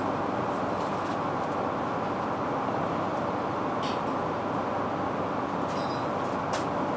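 Steady cabin noise of an Airbus A380 in cruise, heard from a window seat: an even rush of airflow and the Rolls-Royce Trent 900 engines. There are a couple of faint clicks, one about four seconds in and one near the end.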